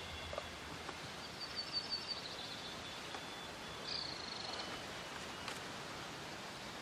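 Faint outdoor ambience with small birds chirping: a quick run of high chirps about one and a half seconds in and a short trill about four seconds in.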